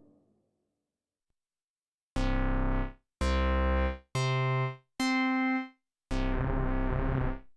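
Dave Smith Instruments Prophet 6 analog polyphonic synthesizer playing a preset patch with no external effects. After about two seconds of silence, five held keyboard tones sound one after another at different pitches, each about a second long with a clean stop; the last is a little longer, with a wobble in its low end.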